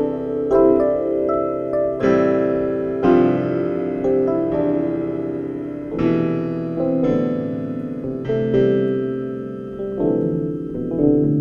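Background piano music, chords struck about once a second and each fading away.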